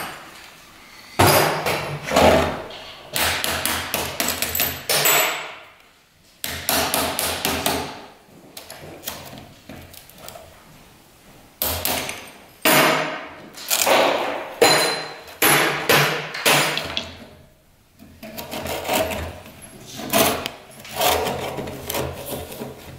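Bursts of quick, sharp tapping on a leaded-glass panel, several taps a second with short pauses between, as a cracked pane is knocked and broken out from between the bent-up lead cames.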